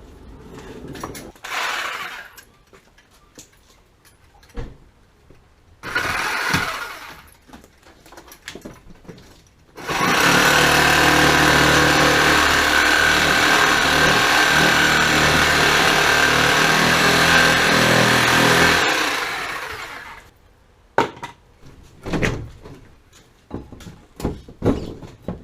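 A power tool runs in two short bursts, then steadily for about nine seconds before winding down. A string of knocks and clatter follows near the end.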